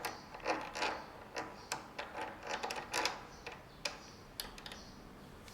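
Irregular small metal clicks and taps as the euro cylinder's fixing screw is handled and set into the door, stopping about four seconds in.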